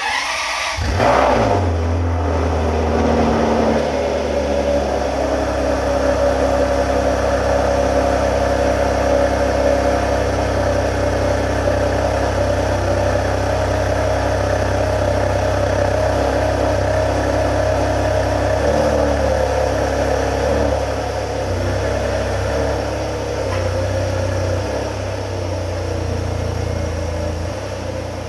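Ferrari 599 GTB Fiorano's 6.0-litre V12 exhaust, flaring briefly about a second in and then settling to a steady idle.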